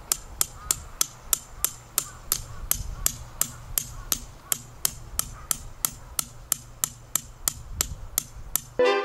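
A hammer driving a metal tent peg into the ground: sharp metallic strikes at a steady pace of about three a second. Near the end the hammering stops and brass music comes in.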